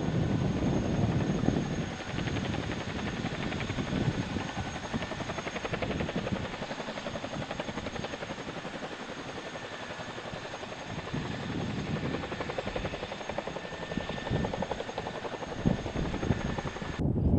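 CH-47 Chinook tandem-rotor helicopter running on the ground, its twin turbine engines and both rotors turning, with a fast, even beat of the blades.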